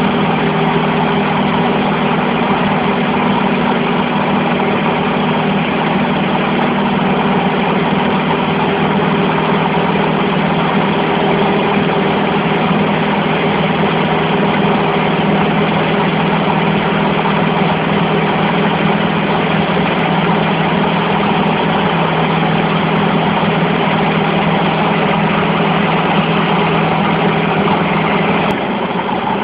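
Cessna 150's four-cylinder Continental O-200 engine and propeller droning steadily in flight, heard from inside the cabin. Near the end the sound drops a little in level.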